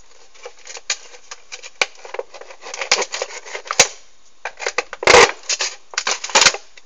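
A serrated knife cutting, giving irregular rasping strokes and clicks. Two louder strokes come about five seconds in and again shortly before the end.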